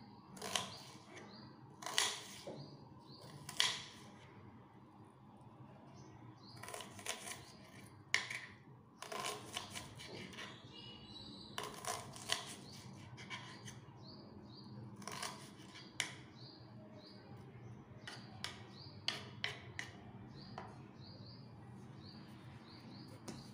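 Kitchen knife chopping a red onion on a round wooden chopping board: irregular cutting strokes of the blade through the onion onto the wood, some single and some in quick runs of several.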